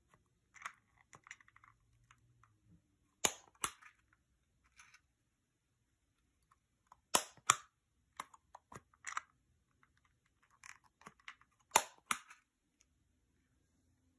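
Hertzko self-cleaning slicker brush's push-button mechanism clicking as the wire bristles are pushed out of and retracted into the plastic head: three sharp double clicks, each pair about a third of a second apart, a few seconds between pairs. Faint small clicks and handling rustle in between.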